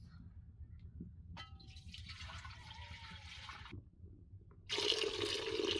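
Water pouring: a softer splashing stretch from about one and a half to four seconds, then a louder, fuller stream that starts suddenly about five seconds in.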